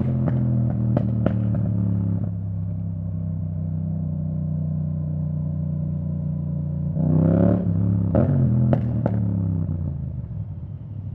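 2017 Yamaha MT-07's 689 cc parallel-twin engine through an Akrapovic titanium full exhaust with the dB killer removed, running steadily on the move. Sharp exhaust pops come in the first second or so. About seven seconds in the engine revs up briefly and falls back, with a few more pops, then the note drops off near the end.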